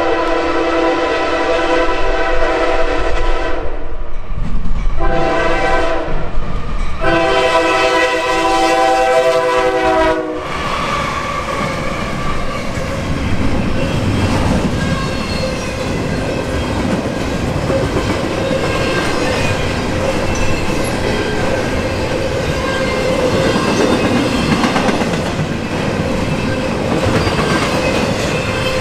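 Norfolk Southern GE AC44C6M locomotive's air horn sounding for a grade crossing: a long blast, a short one and a long one. After the horn stops, about ten seconds in, comes the steady rolling rumble and clickety-clack of the double-stack intermodal container cars passing at speed.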